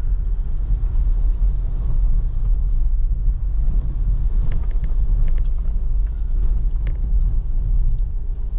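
Car being driven: a steady low rumble of engine and road noise, with a few light sharp ticks partway through.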